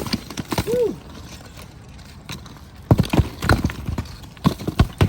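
Irregular sharp knocks and clacks, as of hard objects striking, bunched in a quick cluster about three seconds in and again near the end.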